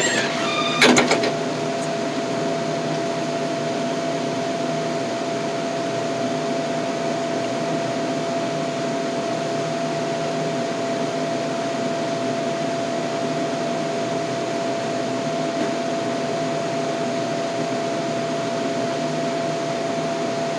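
Wheel loader's diesel engine idling with a steady, even hum, heard inside its cab; a short knock about a second in.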